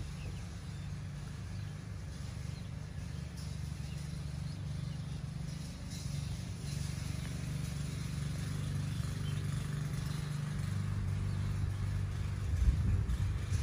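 Steady low rumbling background noise that grows louder and gustier near the end.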